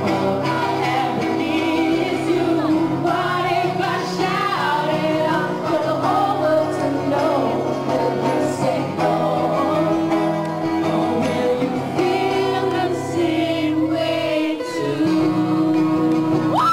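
A song being sung over sustained instrumental accompaniment, with held notes underneath a wavering melody line.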